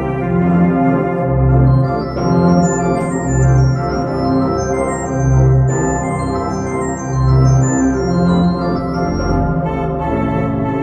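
Organ music: sustained full chords that swell about every two seconds, with runs of short high notes climbing and falling above them.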